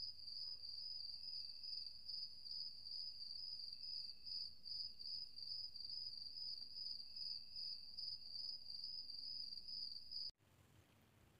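Faint crickets chirping: a steady high trill pulsing about twice a second, which cuts off suddenly about ten seconds in.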